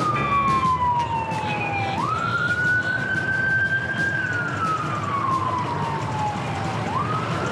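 An emergency-vehicle siren wailing in slow cycles: the tone slides slowly down, then sweeps quickly back up about two seconds in and again near the end. A steady low rumble runs underneath.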